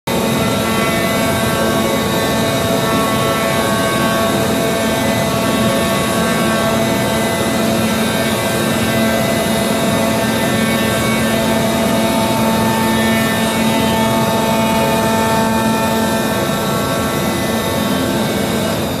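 CNC knife-cutting machine running, its pneumatic oscillating knife cutting circles out of felt sound-insulation cotton: a loud, steady machine drone with a buzz.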